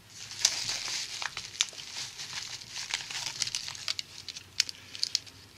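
Clear plastic bag and padded paper mailer crinkling as the bag, with a silver round inside, is pulled out of the mailer: many sharp crackles, dying down near the end.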